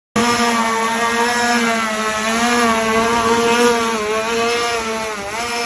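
A small engine running at a steady high speed, with a buzzing drone that wavers slightly in pitch and cuts in and out abruptly.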